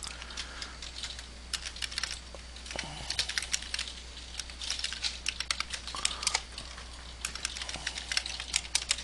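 Typing on a computer keyboard: several short bursts of rapid keystrokes with brief pauses between them.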